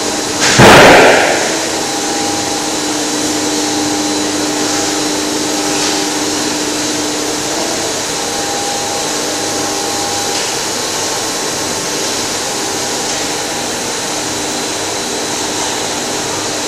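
Double-layer co-extrusion line running: a steady hum and whir of motors and fans with several steady tones over it. About half a second in, a loud rush of noise lasts about a second and dies away.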